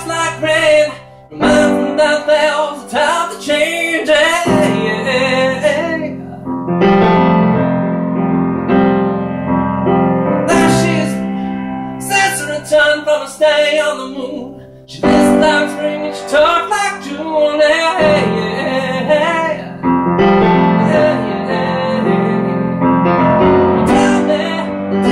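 A man singing while accompanying himself on a grand piano. The sung phrases break off for a few seconds twice, leaving the piano playing alone.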